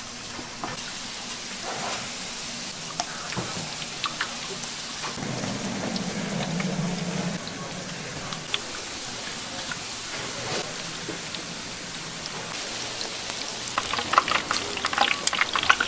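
Food sizzling in hot oil in a pan, with scattered clicks of a cooking utensil. The sizzle grows louder and more crackly near the end.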